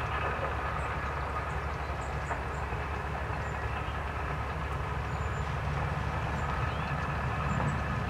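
Steady low mechanical rumble from distant machinery or traffic, with faint steady hum tones above it, swelling slightly near the end.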